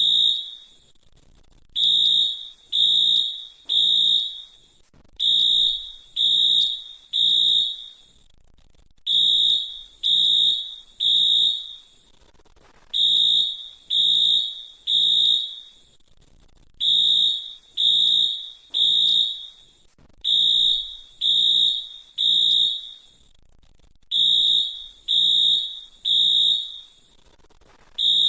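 Fire alarm sounding the temporal-three evacuation pattern: three loud, high-pitched beeps about a second apart, then a pause, repeating roughly every four seconds.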